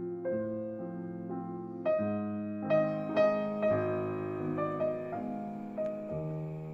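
Background piano music, slow and gentle, with notes and chords changing about every half second.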